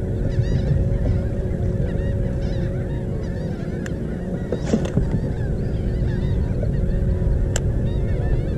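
Wind rumbling on the microphone, with a steady low two-note hum and faint bird chirps throughout. There are two brief clicks, one about halfway and one near the end.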